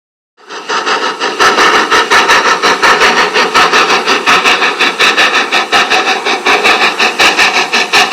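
Railway locomotive sound effect: a loud, steady rush of noise with a fast, regular beat of about four to five strokes a second, starting about half a second in.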